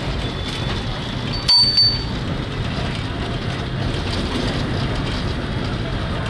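Burn Standard tramcar running with a steady low rumble, and a bell struck twice with a bright ring about a second and a half in.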